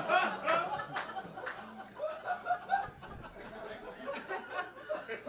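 Comedy-club audience laughing and chuckling, the laughter gradually dying down.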